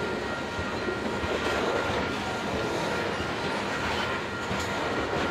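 Loaded covered hopper cars of a long freight grain train rolling past at speed: a steady rumble and rattle of steel wheels on the rails, with a thin steady high-pitched tone running under it.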